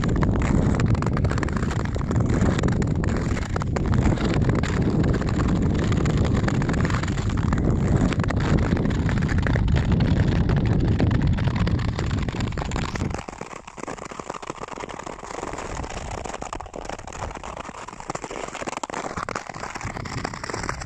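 Wind buffeting the microphone while skating at speed over snow-covered lake ice, over the steady scraping hiss of Nordic skate blades. The low wind rumble drops away suddenly about two-thirds of the way through, leaving mostly the scratchy blade noise.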